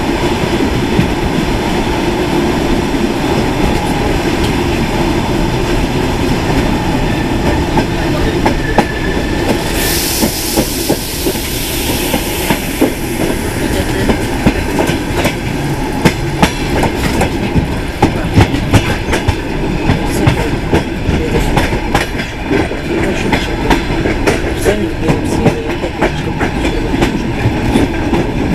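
Commuter train running, heard from on board: a steady rumble of the carriage with the wheels clicking over rail joints and points, the clicks coming thicker in the second half. A hiss starts about ten seconds in and fades over a couple of seconds.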